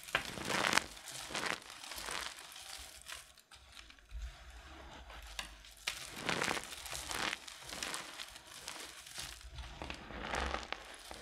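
Hands squeezing and crushing a heap of crumbled dry soap mixed with starch powder: crunching and crumbling in a series of squeezes. The loudest squeezes come about a second in and again around six seconds in.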